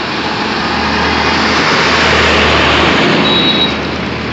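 Road traffic and vehicle engine noise heard while moving along a street, swelling to its loudest about two seconds in and easing off near the end, with a brief high tone shortly before it fades.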